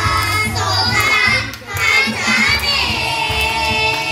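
A group of young boys singing together into microphones over a backing track with a steady beat, ending on a long held note.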